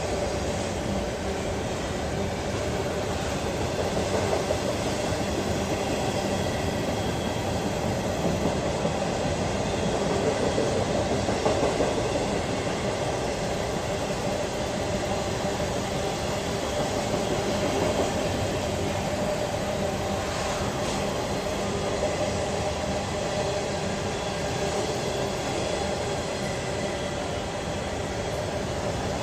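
A train passing: a steady rumble of railcars rolling along the track, with light clicking of wheels over the rail joints.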